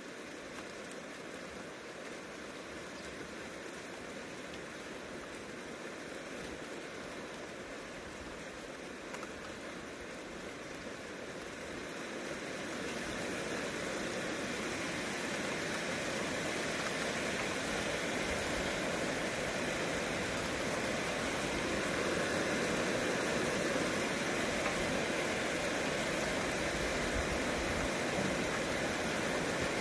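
Heavy rain falling in a steady hiss that swells noticeably about halfway through as the downpour intensifies.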